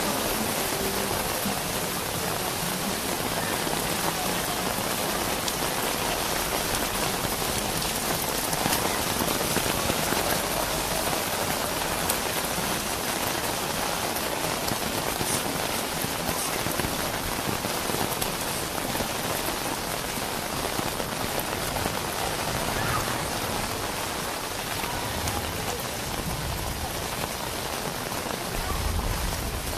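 Heavy rain falling steadily on the street and pavement: a dense, even hiss that holds for the whole stretch. A low rumble swells near the end.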